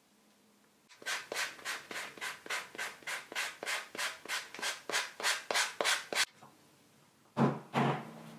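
A stitched leather edge sanded with a sanding block in quick back-and-forth strokes, about three or four a second, for some five seconds. Two short, louder scuffs follow near the end.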